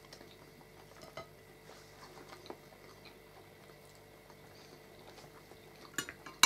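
Quiet eating at the table: a few faint clicks and small mouth sounds, then near the end a metal spoon knocking on a plate with a couple of sharp clinks.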